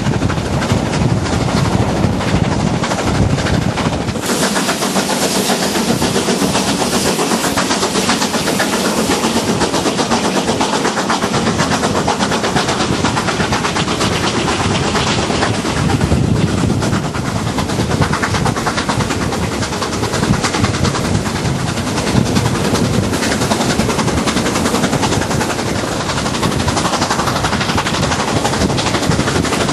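BR Standard Class 7MT Pacific steam locomotive 70013 'Oliver Cromwell' running with rapid exhaust beats, heard from a carriage window of the train it is hauling, together with the rush of the moving train.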